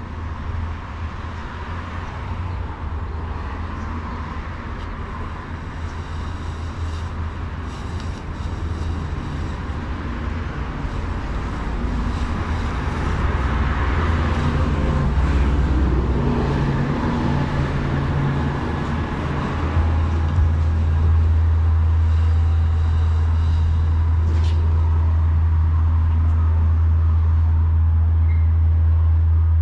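Road traffic on the street: a steady low rumble, with a vehicle passing and rising in the middle and the rumble growing louder and steadier in the second half.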